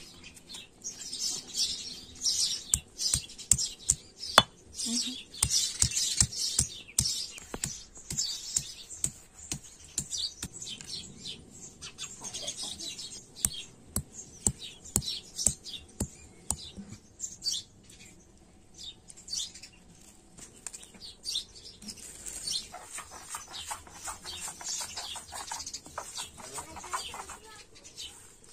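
Stone roller working on a flat grinding stone (sil-batta), crushing red ants into a paste: frequent, uneven sharp knocks of stone on stone with grinding scrapes between them. Birds chirp in the background.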